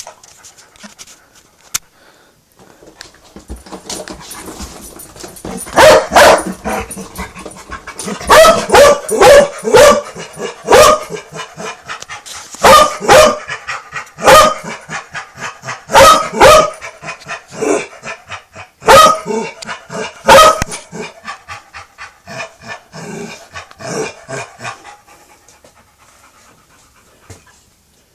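Dog barking at a vacuum cleaner: loud, sharp barks in quick clusters of two to four, starting about six seconds in and dying away after about twenty seconds.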